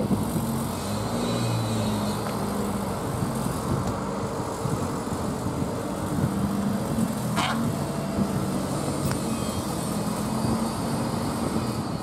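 Datsun 1200 wagon's A12 four-cylinder engine running at low revs as the car creeps forward at walking pace, a steady low engine note.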